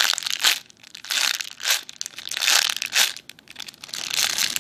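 Plastic packaging crinkling in irregular bursts as a squishy toy in its plastic bag is handled.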